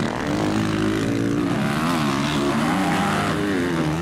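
Motocross dirt bike engines revving during a race, their pitch rising and falling repeatedly as the throttle is opened and closed.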